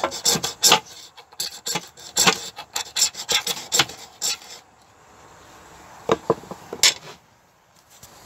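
Quick repeated rasping scrapes on wood, a dense run of strokes for about four and a half seconds, then a few more after a short pause.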